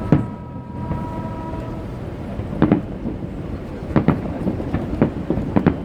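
Aerial fireworks exploding: about six sharp bangs spaced irregularly, the last two in quick succession near the end, over a steady low rumble. A brief steady whistle-like tone sounds in the first two seconds.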